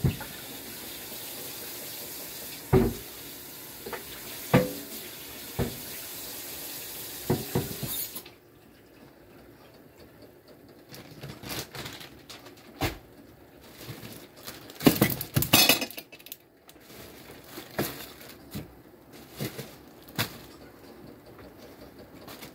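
Kitchen tap running into a sink with dishes knocking, shut off about eight seconds in. Then scattered clinks and knocks of dishes and utensils.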